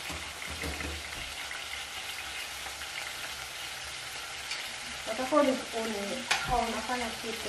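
Onions sautéing in an aluminium pot on a gas stove, a steady sizzle as the water added to them cooks off. A single sharp click comes a little over six seconds in.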